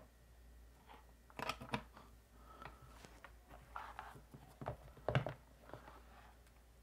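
Handling noise of a USB cable being plugged in and a tablet's folio case being opened on a table: a few light clicks and rustles, with the loudest knock about five seconds in.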